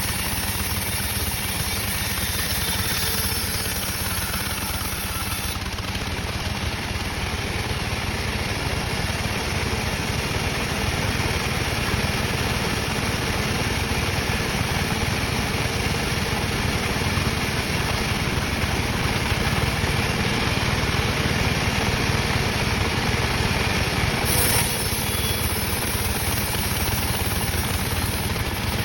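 Sawmill saw machinery running steadily, a continuous engine-like drone.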